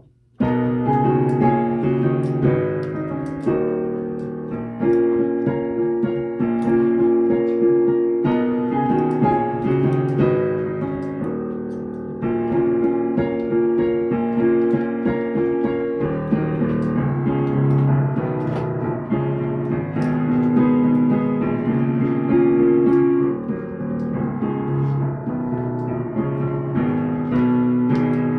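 Piano playing an instrumental introduction of chords and melody, starting about half a second in, before the singing begins.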